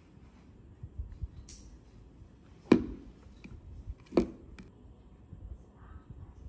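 Handling noise from a gold jar of Tsubaki hair mask turned in the hand: a brief rustle, then two sharp knocks about a second and a half apart, the first the loudest.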